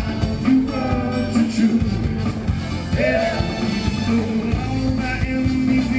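Rock-style song with a steady drum beat, bass and guitar, and a voice singing over it.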